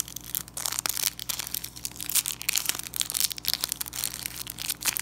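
Foil Wacky Packages sticker-pack wrapper crinkling as hands twist and tear it open, a dense run of sharp crackles.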